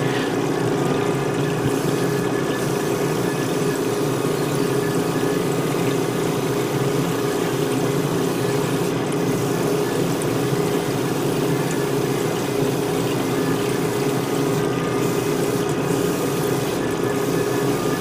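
Kaizo Waterfall Spray Booth running steadily, its fan and recirculating water curtain giving a constant whir and rush of water, mixed with the hum of an air compressor, while an airbrush sprays primer.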